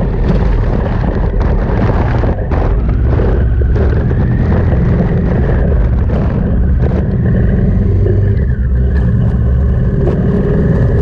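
Wind buffeting the microphone of a vehicle driving at speed through a sandstorm, a loud low rumble over the vehicle's steady engine and road noise.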